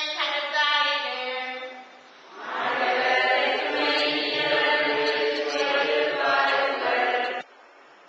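A woman's solo voice holds a sung line, then about two and a half seconds in a congregation and choir sing a chanted response together in Tamil, which stops abruptly near the end: the sung liturgical response at Mass.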